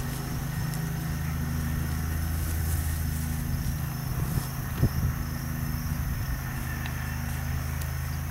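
A vehicle engine idling steadily with an even, low hum, and a brief thump about five seconds in.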